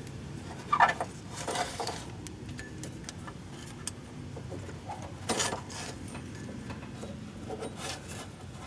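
Scattered rubbing and knocking as a rubber serpentine belt is worked off the engine's pulleys by hand, over a low steady hum. The sharpest knock comes about a second in, with another around five seconds in.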